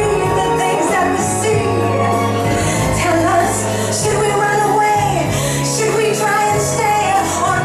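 Music: a pop song with a singer's melodic voice over a bass line that holds each low note for a second or so.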